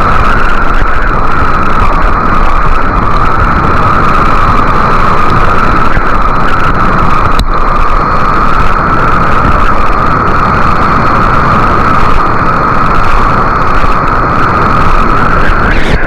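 Loud, steady rush of whitewater as a kayak surfs a standing river wave, heard close to the water from a camera on the paddler. There is one sharp click about halfway through.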